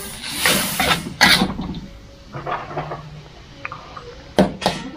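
Metal spatula scraping and stirring food in an aluminium wok, in quick strokes through the first second and a half and more lightly after. Two sharp knocks come near the end.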